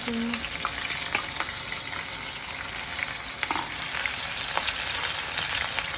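Sweet corn kernels coated in maida and cornflour deep-frying in hot oil: a steady sizzle with scattered sharp pops and crackles.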